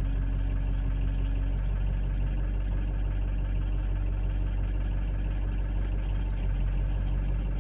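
Ford 6.0L Power Stroke V8 turbo-diesel idling steadily while still cold, its hum even throughout, with a slight change in pitch about a second and a half in.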